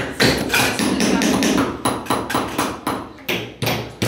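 Several hammers striking metal leather stamps, punching patterns into leather laid on wooden boards: rapid, irregular overlapping taps, several a second, thinning out near the end.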